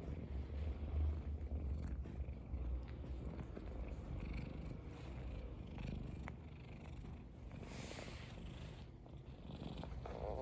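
Domestic cat purring steadily, close up, louder for the first couple of seconds and softer afterwards, with a few soft licking sounds as it grooms its fur.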